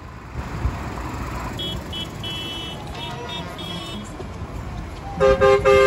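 Tractors in a parade passing with a low engine rumble, with faint short high beeps in the middle. Near the end a tractor's horn sounds loudly twice, the second blast longer.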